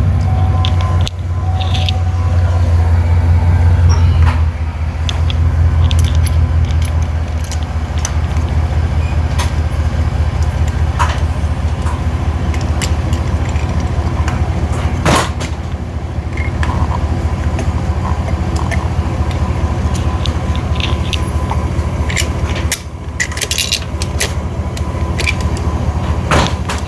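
A car engine idling steadily, a loud low hum with a fine even pulse, with scattered sharp clicks and knocks, the clearest about halfway through and a cluster near the end.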